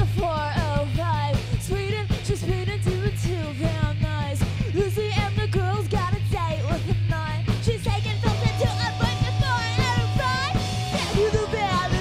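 Live rock band: a woman's lead vocal sung over drums, bass guitar and electric guitar, with steady held notes from keyboard or guitar joining about two-thirds of the way in.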